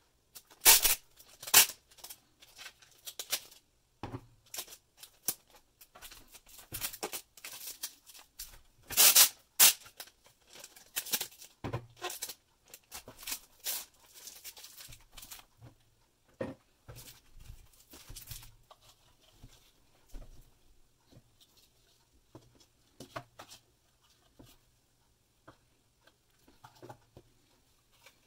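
Clear packing tape pulled off a tape dispenser and torn off in several loud, sharp bursts, with softer crinkling as the foam-wrapped bundle is handled and the tape pressed down. The bursts thin out in the last third.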